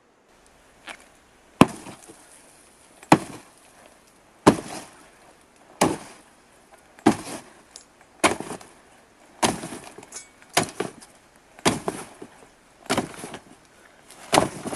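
A sword striking a coffin lid again and again: about a dozen hard blows, a little more than a second apart, each trailing off briefly.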